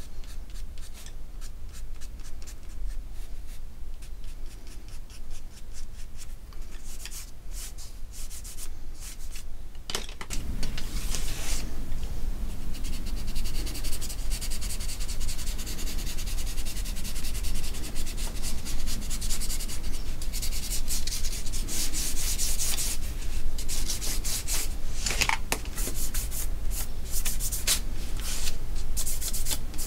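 Pastel pencil scratching in quick short strokes on smooth card stock, shading the sea. About ten seconds in it turns louder and hissier, a steadier rubbing on the card.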